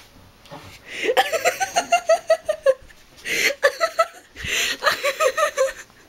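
A person laughing in three bouts of quick ha-ha pulses: a long run starting about a second in, a short burst, then another run ending near the end.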